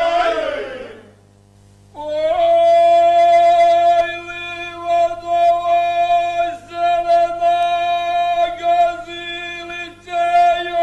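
Men singing a traditional Herzegovinian folk song with no instruments. A phrase ends in a falling glide, and after a short break about two seconds in, a long, steady held note follows, wavering only briefly now and then.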